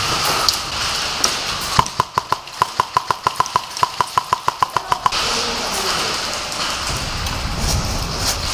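Rapid semi-automatic fire from a VFC Block II airsoft rifle fitted with an amplifier: about twenty sharp shots in a little over three seconds, each with a short ringing ping. The shots begin about two seconds in and stop suddenly.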